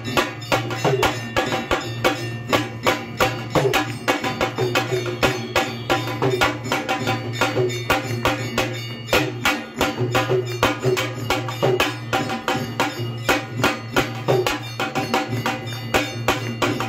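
Temple aarti percussion: a drum and sharp metallic strikes keep a steady, fast beat of about three or four strokes a second over a steady low hum.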